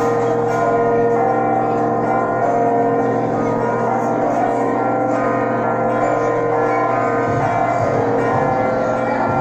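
Church bells ringing a continuous peal, a dense mass of overlapping ringing tones held steadily.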